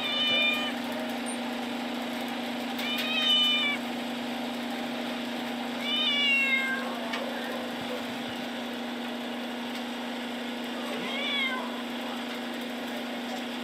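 Tabby cat in a steel shelter cage meowing four times, the third call the longest and falling in pitch. A steady low hum runs underneath.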